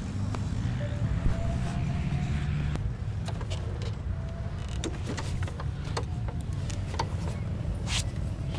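Sport quad (ATV) engine running at low speed as it is ridden slowly over sand, a steady low rumble with scattered clicks and knocks.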